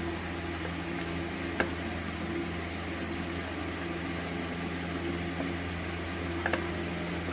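Steady low background hum, with a few small clicks as a screwdriver works a wire into the terminal of a three-pole miniature circuit breaker: once about a second and a half in, and twice near the end.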